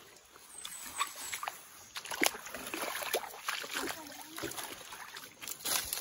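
Footsteps splashing through a shallow, rocky stream: uneven sloshes of feet in the water with scattered sharp knocks and scrapes on the stones.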